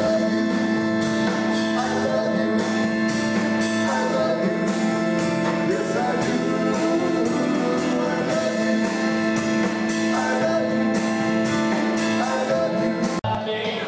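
Live band playing: electric guitars, drums keeping a steady beat of about two hits a second, and a singer. The music cuts off suddenly near the end.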